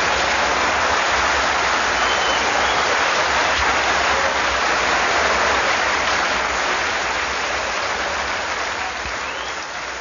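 Live audience applauding steadily, then fading away over the last few seconds.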